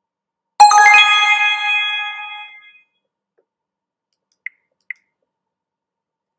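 A bright electronic chime sound effect: two ringing notes struck in quick succession, fading out over about two seconds. A couple of seconds later come two short, high blips.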